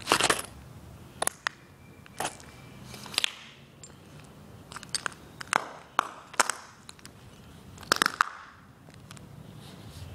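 Nike high-top sneakers stepping on and grinding the shards of a smashed piggy bank on concrete: irregular sharp crunches and cracks, about a dozen, stopping about two seconds before the end.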